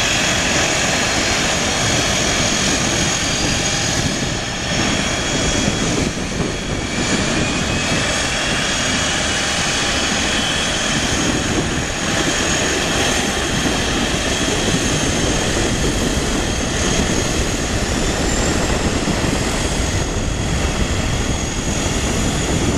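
Boeing 757-200 airliner's two Pratt & Whitney PW2000-series turbofans running through the rollout after landing: a steady jet rush with a faint high whine, some tones slowly gliding in pitch.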